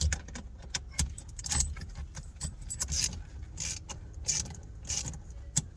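Hand ratchet turning the centre screw of a steering wheel puller: short metallic strokes with clicking, repeating about every half second, as the screw is driven in to press the steering wheel off its shaft.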